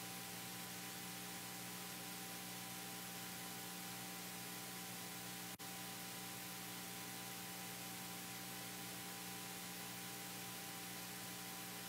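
Steady electrical mains hum with hiss, broken once by a very brief dropout about five and a half seconds in.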